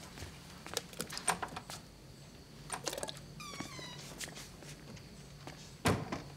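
Footsteps and light knocks, with one short, high-pitched squeak about halfway through.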